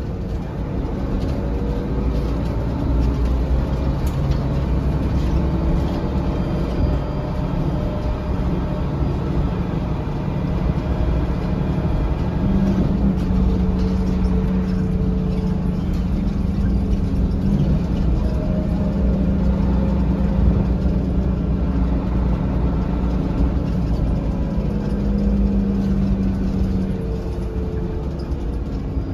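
Inside a moving 2004 Mercedes-Benz O500LE bus: steady engine and road rumble. A steady engine hum comes in about halfway through and fades out near the end.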